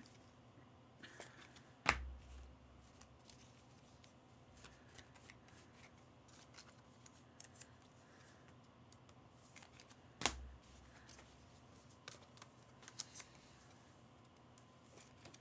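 Quiet handling of trading cards at a desk: faint rustles and small ticks, with two sharp knocks on the desk about two seconds and ten seconds in.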